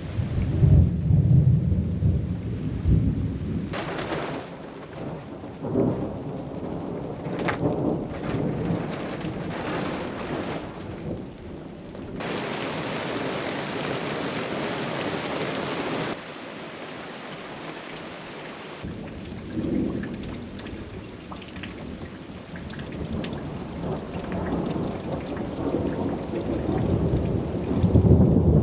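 Steady rain falling, with deep low rumbling about a second in and again near the end.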